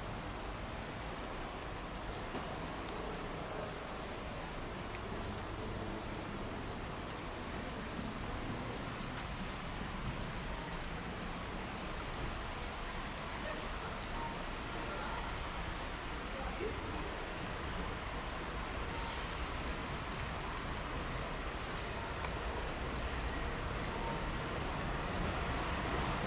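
Steady outdoor hiss with a rain-like patter and a few faint ticks, growing slightly louder over the last few seconds.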